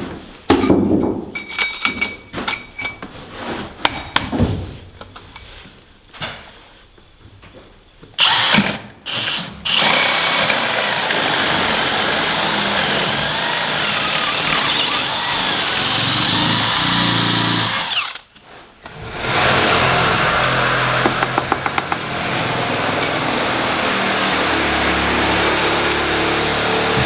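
Power tool running in short irregular bursts at first, then steadily for long stretches with one brief stop about two-thirds of the way through.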